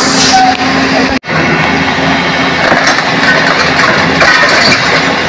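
Steady traffic noise with a vehicle engine running close by. The sound cuts out abruptly for a split second about a second in.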